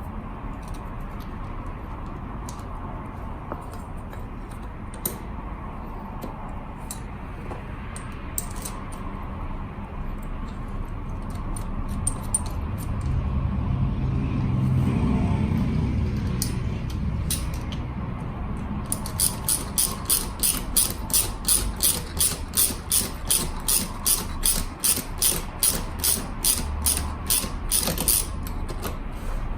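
Workshop tool work on a scooter: a steady low hum that swells in the middle, then, from about two-thirds in, fast, regular mechanical clicking at a little over two clicks a second.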